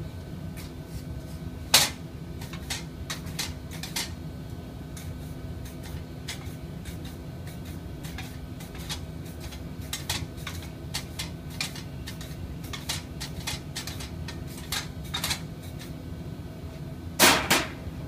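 Metal tool scraping and knocking irregularly against the metal mixing bowl of a lab mixer while it is being cleaned out, with a sharp knock about two seconds in and a louder clatter near the end. A steady machine hum runs underneath.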